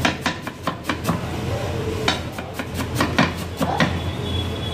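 A knife chopping fresh coriander on a wooden cutting board: quick, uneven knocks of the blade on the wood, with a short lull about a second in.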